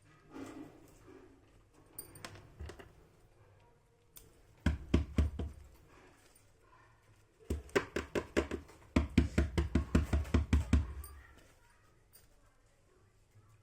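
Hands handling a toy doll set and its packaging: two runs of rapid knocks and taps, about six a second, the second run longer, with quieter rustling between them.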